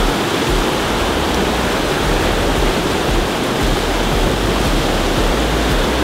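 Whitewater rapids rushing steadily: a loud, even noise of churning water.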